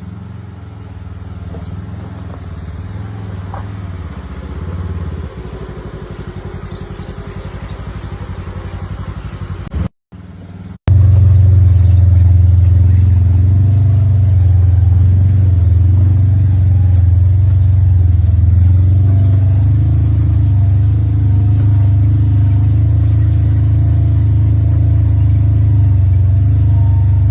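Can-Am Commander side-by-side's engine running as it is driven, a steady low rumble. The sound cuts out briefly about ten seconds in, then returns much louder and steady.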